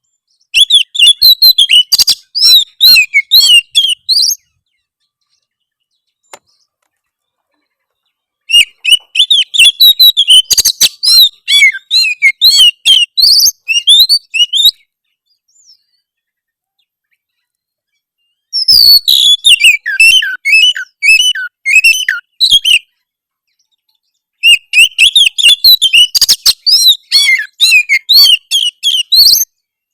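Oriental magpie-robin (kacer) singing a harsh, rapid song of chirps and whistles, in four loud bursts of four to six seconds with silent gaps between them. This is the rough, challenging song used to goad rival males into singing.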